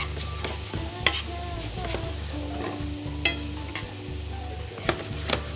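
Shallots frying in butter and vegetable oil in a pan, sizzling steadily while they are stirred, with a few sharp clicks of the utensil against the pan.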